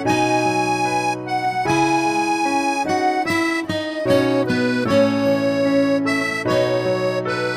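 Background music: a melody played on a reed instrument such as an accordion, with sustained chords and notes changing every half second or so.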